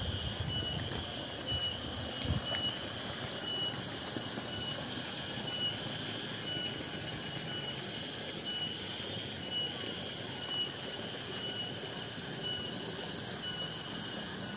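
Chorus of cicadas (tonggeret): a steady high-pitched buzz that swells and fades about once a second.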